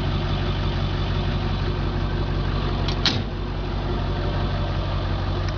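International 4700 medium-duty truck engine idling steadily, with a single short clack about three seconds in.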